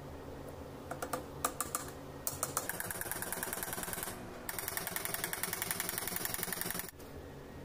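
Small hammer lightly tapping the metal end cap on a katana replica's wooden handle. A few separate taps come first, then two runs of rapid, even tapping with a short pause between, stopping abruptly near the end.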